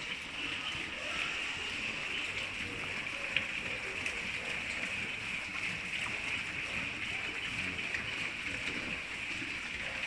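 A steady high hiss, with faint scattered clicks and shuffling from a litter of piglets suckling at a sow.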